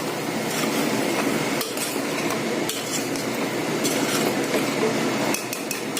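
A spoon stirring soya chunks into a masala in a metal pressure cooker, scraping the pot continuously, with a few sharper knocks against the metal.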